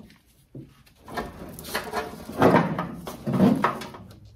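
Wiring and connectors in a car's engine bay being handled and pulled loose: irregular rustling, scraping and clicking, with two louder knocks in the second half.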